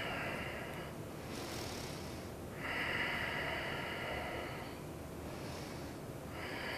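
A woman breathing slowly and audibly close to the microphone during a held yoga pose: long, even breaths of about two seconds each, three in all, with quieter gaps between.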